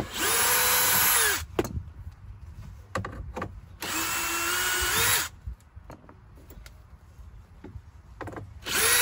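Cordless drill driving a 7 mm socket to back out screws, in short bursts: two of about a second each and a third starting near the end. Each is a motor whine that rises as the trigger is pulled and drops as it is released, and the second runs at a lower speed.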